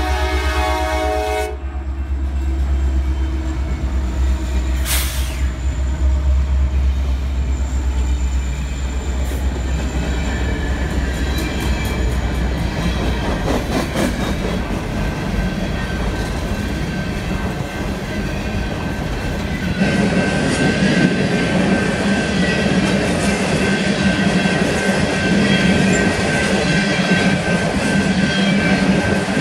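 Horn of Norfolk Southern SD70ACe locomotive NS 1074 sounding for the crossing and ending about a second and a half in. The diesel locomotives then rumble past close by, giving way to the rolling clatter of an empty coal train's cars. A steady high wheel squeal joins about two-thirds of the way through.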